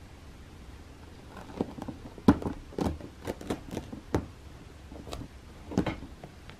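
A cat's paws and claws batting and scratching at a ribbed scratching ramp while it grapples with a feather boa toy: a run of irregular scratchy thumps and claw clicks starting about a second and a half in, the loudest just after two seconds, with a last cluster near the end.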